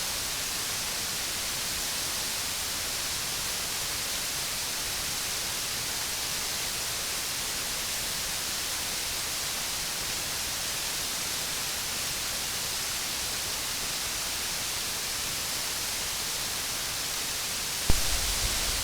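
Steady roar of a nearby waterfall, an even unbroken rush of water noise. Near the end there is a single knock, likely the camera being handled.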